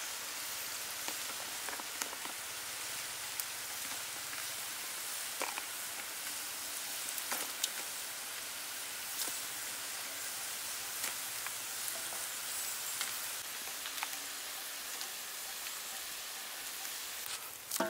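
Battered onion rings deep-frying in hot oil: a steady sizzle with scattered small pops and crackles.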